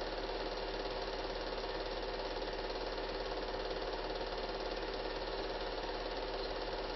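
Cine film projector running: a steady, fast mechanical clatter with a constant low mains hum beneath it.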